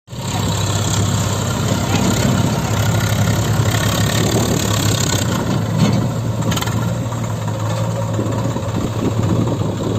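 Diesel engine of a heavy farm or construction machine running steadily at low revs, with a couple of short knocks about six seconds in.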